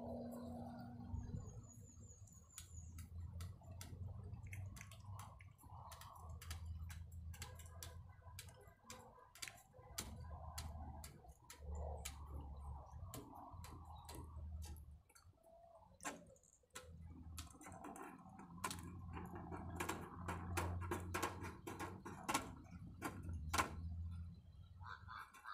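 Wire mesh being handled and shifted, giving irregular light clicks and rattles, over a low rumble.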